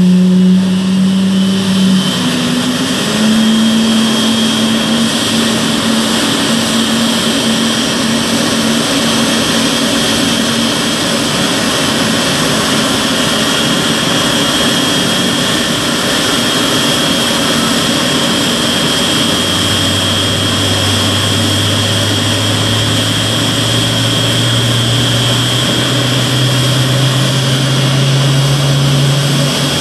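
Loud, steady jet-engine whine and roar from a widebody twin-jet airliner during pushback by a tow tug, with a thin high whine throughout. Over the last ten seconds a low hum slowly rises in pitch.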